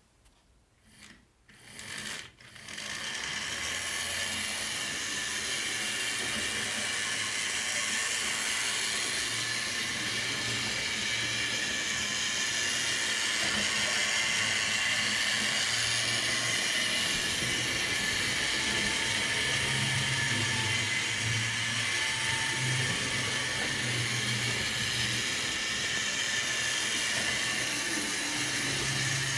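Small electric motor and gears of an HO-scale model train locomotive running on its track: a steady mechanical whir that starts about two seconds in after a few light clicks.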